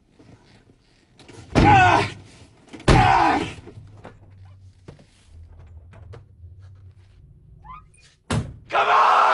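A man cries out in anguish twice, two long wailing cries close together. Near the end comes a short sharp thunk of a vehicle door, then another loud cry. A low rumble runs underneath.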